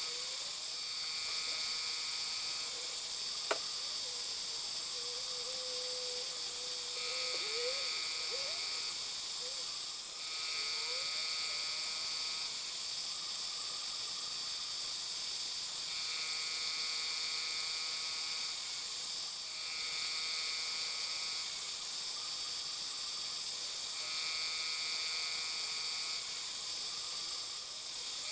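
Harbor Freight mini-mill spindle running with a steady whine while its end mill cuts flats around a brass rod, turned between passes on a dividing head. A higher cutting tone comes and goes every few seconds, and there is one sharp click a few seconds in.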